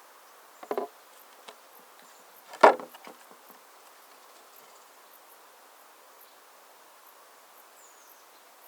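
A short double knock, then a loud, sharp knock about two and a half seconds in followed by a few lighter taps, over a faint steady hum.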